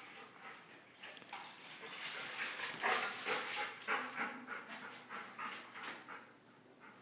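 Two dogs play-fighting, a big one and a small one, giving a flurry of short dog noises that is busiest and loudest about two to four seconds in and tails off toward the end.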